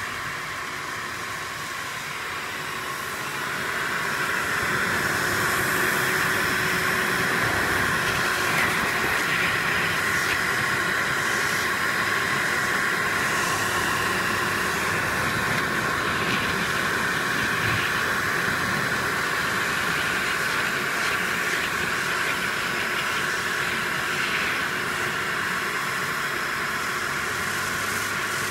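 Hand-held electric hot-air blower running with a steady hiss, its nozzle pressed onto newspaper laid over plastic sheeting; it gets louder about four seconds in.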